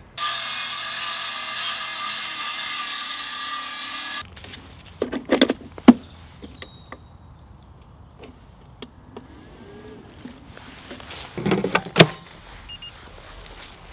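A small battery power tool's electric motor runs steadily for about four seconds and then cuts off. Later come a few knocks and a clatter, the loudest near the end as an 18V Makita battery is slid and clicked into a Makita dual charger.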